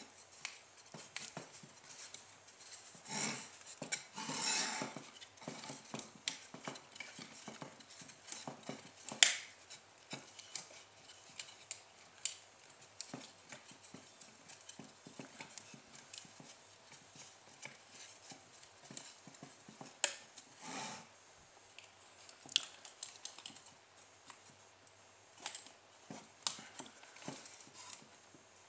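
Faint handling noise of a homemade wooden mousetrap car being wound up by hand: irregular small clicks, taps and rubbing as the plywood wheels are turned to wind fishing line round the flower-cane rear axle, drawing back the mousetrap's spring-loaded lever arm. One sharper click stands out about nine seconds in.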